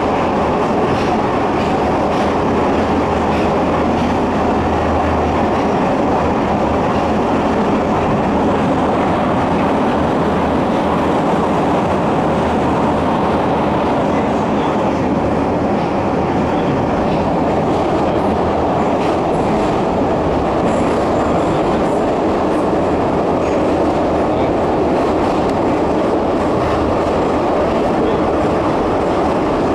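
Kyiv metro train running at speed through a tunnel, heard from inside the passenger car as a loud, steady noise of wheels on rails with faint scattered clicks.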